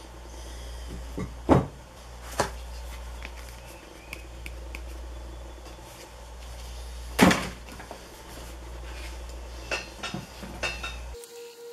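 A few sharp knocks and lighter clicks from a file and sheets of sandpaper being handled on a workbench, over a steady low hum. The loudest knock comes about seven seconds in.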